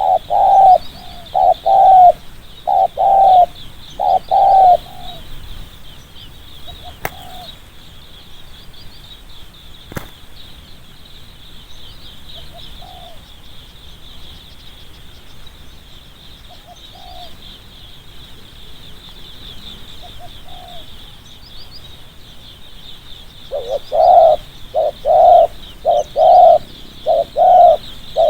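Spotted dove cooing: quick runs of loud, low coo notes at the start and again over the last few seconds, with single soft coos now and then in between. A steady high chirring runs underneath throughout.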